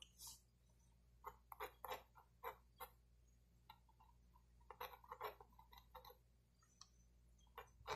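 Mechanical pencil scratching short, quick strokes on drawing paper, faint and irregular, in small clusters with pauses between them.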